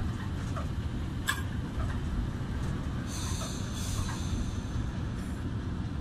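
Low rumble of a Pakistan Railways passenger train running on the track, heard from aboard, with a sharp click a little over a second in and a brief high squeal about three seconds in.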